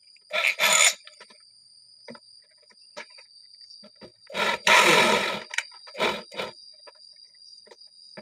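Electric drill run in three short bursts against the centre of a PVC hydram pump's waste valve, the middle burst the longest and loudest.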